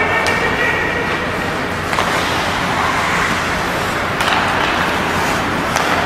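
Ice hockey rink during play: a steady hiss of skates on the ice and arena noise, with about four sharp clacks of sticks on the puck.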